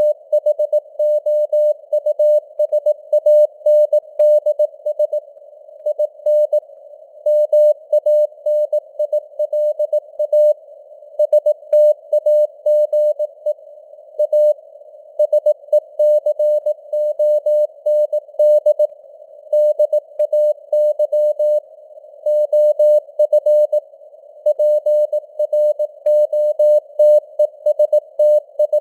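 Morse code (CW) at 18 words per minute: a single steady beep tone keyed on and off in dots and dashes, with short pauses between words, over a hiss of simulated radio band noise. The signal strength rises and falls a little, like fading on a shortwave signal.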